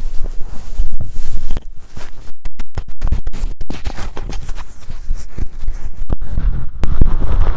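Microphone handling noise as a small corded microphone is rubbed and repositioned against the belly and clothing: scratchy rubbing and knocking, close and loud. The sound cuts out briefly several times about two to four seconds in.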